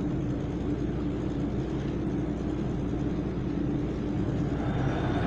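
Steady low mechanical rumble with a constant hum, typical of a ship's engine and machinery heard on deck.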